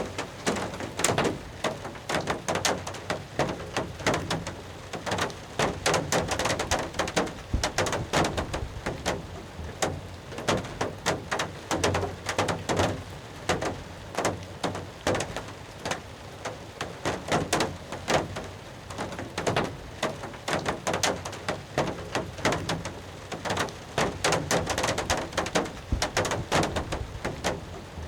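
Rain falling steadily on a hunting blind, heard from inside as a dense, irregular patter of sharp drop impacts.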